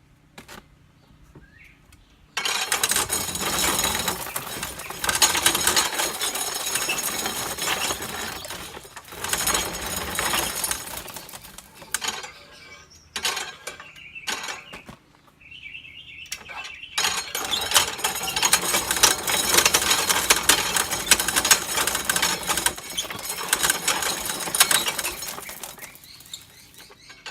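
Hand-crank corn sheller shelling ear corn: a loud, dense rattle and clatter as the toothed wheel strips kernels off the cob. It starts about two seconds in, breaks off briefly a few times and picks up again.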